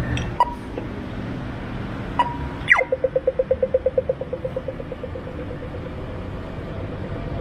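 Australian audio-tactile pedestrian crossing signal: two slow locator beeps, then the falling 'laser' sweep and a run of rapid ticking that fades, the signal that the walk phase has started. Traffic noise runs underneath.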